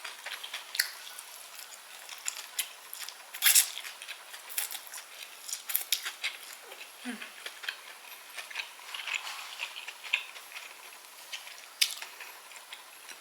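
Close-miked eating sounds: chewing with wet mouth clicks and light taps of cutlery, scattered sharp clicks throughout, the loudest about three and a half seconds in.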